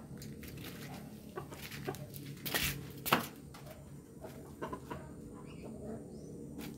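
A rooster clucking softly as it pecks about, with scattered small scuffs, a short scraping noise and a sharp click around the middle.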